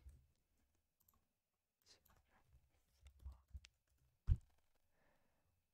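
Faint computer keyboard typing and mouse clicks, with a louder click about four seconds in.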